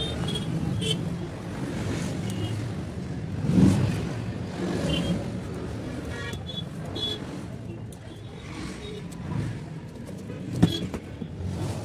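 Steady low background rumble with light handling knocks as a bamboo basket frame is moved about on a table; one sharp knock near the end.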